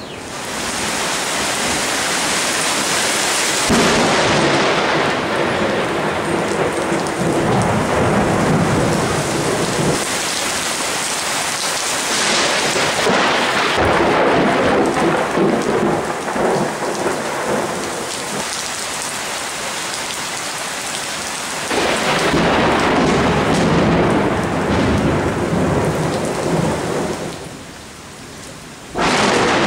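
Thunder from nearby lightning rolling in long rumbles over heavy rain. The rumbles swell and fade several times. Near the end it dies down briefly, then a sudden loud crack starts another peal.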